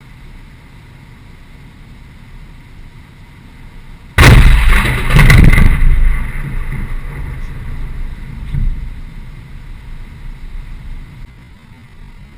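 A sudden loud blast about four seconds in, with a second burst a second later, then a low rumble dying away over several seconds.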